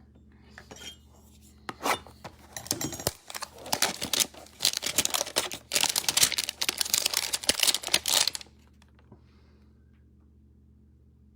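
Packaging of a Donruss trading-card hanger box being torn open: a run of tearing and crinkling bursts that stops a few seconds before the end.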